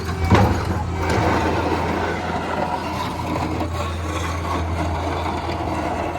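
Diesel engine running steadily while a snow pusher scrapes across pavement, with two sharp knocks right at the start.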